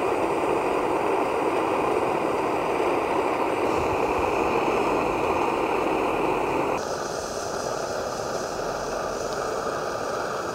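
Steady roar of a PT-1 petrol pressure stove's burner heating a pot of boiling water. About seven seconds in, the roar gets a little quieter and changes in tone.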